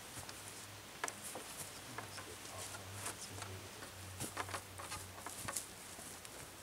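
Scattered, irregular light clicks and rustles of footsteps on dry forest litter and thin wooden poles being handled and bent against a log frame.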